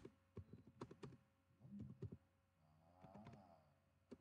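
Faint, irregular keystrokes on a computer keyboard as a line of text is typed.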